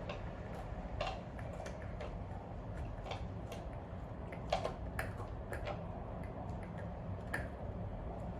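Light clicks and taps at uneven spacing, about two a second, one a little louder halfway through, over a steady low hum.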